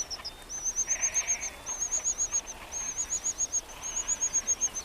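Cuckoo chick begging for food: rapid trains of high, thin notes, about ten a second, repeated in bursts of roughly a second one after another.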